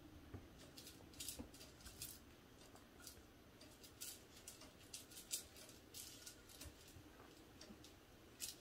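Faint, irregular clicks and scratches as a kitten bats at and grabs a feather toy on a coiled wire spring, its paws and claws striking the carpeted scratching pad and the wooden floor.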